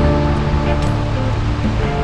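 Background music with held notes that change pitch, and a light high tick about a second in.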